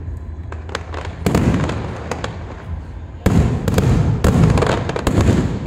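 Aerial fireworks bursting: a boom a little over a second in, then a quick run of booms from about three seconds on, with crackling and small pops between them.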